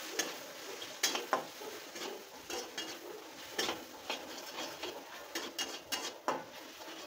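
Metal spatula scraping and clinking against a metal kadhai (Indian wok) while stirring frying onions and masala, in irregular strokes several times a second.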